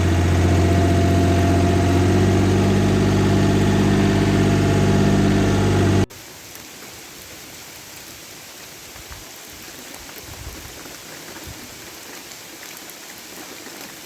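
A loud, steady, even-pitched hum that cuts off suddenly about six seconds in, followed by the soft, steady hiss of rain falling on surfaces.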